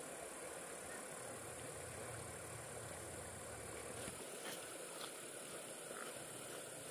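Outdoor ambience with a steady high-pitched insect drone over an even background hiss, and a few faint knocks about four to five seconds in.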